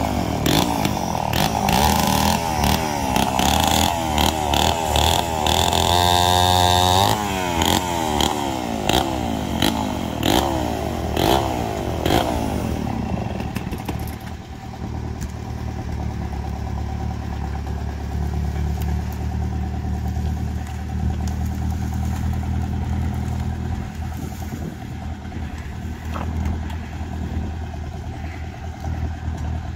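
A gas chainsaw revving up and down over and over, its pitch rising and falling, above a farm tractor's engine running steadily. About twelve seconds in the chainsaw stops, and the tractor engine runs on alone.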